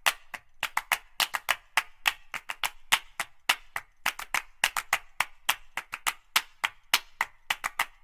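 A quick, irregular series of sharp clicks, about four to six a second.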